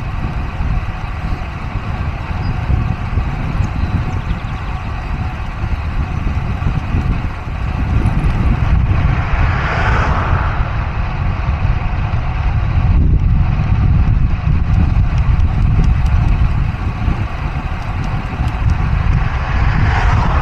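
Traffic on a highway heard from a road bike, with steady wind rumble on the action camera's microphone. A vehicle passes close about ten seconds in, and another near the end.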